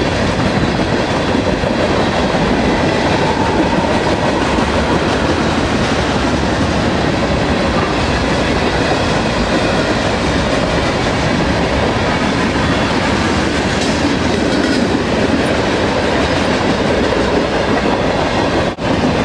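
Freight train cars, tank cars and then boxcars, rolling past close by: a loud, steady noise of steel wheels on the rails. The sound drops out briefly about a second before the end.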